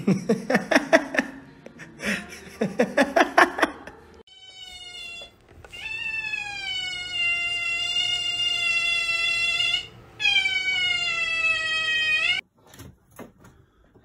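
A small furry pet's long, high, drawn-out meow-like wail, given as two calls, the first about six seconds long and the second about two, each cutting off abruptly. Before the wail, two short bursts of rapid clicking chatter.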